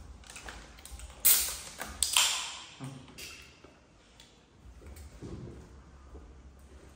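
Aluminium Coca-Cola can opened by its pull tab: a sharp crack with a short fizzing hiss about a second in, a second snap shortly after, then small clicks and taps as the can and snacks are handled.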